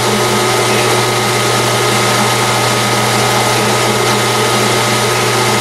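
Metal lathe running at a steady speed with its spindle turning: a constant mechanical hum with a steady high whine above it.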